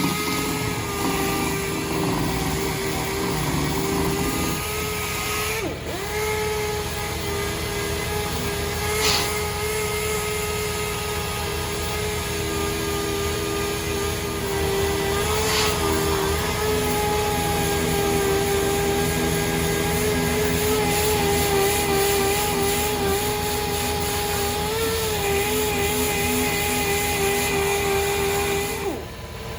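A small motor running steadily with a slightly wavering hum. It breaks off briefly about six seconds in, there are two single knocks, and it stops just before the end.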